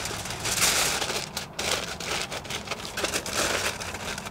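Aluminium foil crinkling and crumpling as it is folded and pressed tightly around a rack of ribs, a dense crackle that comes and goes with the hand movements.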